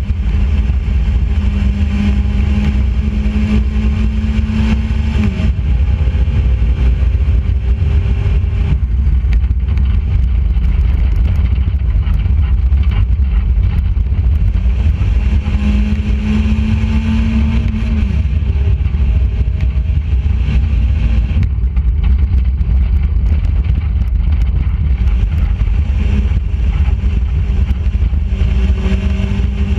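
Enduro race car's engine running hard around a dirt oval, heard from outside on the hood with heavy wind rumble on the microphone. The engine note holds steady for a few seconds and then drops, three times over, as the car laps.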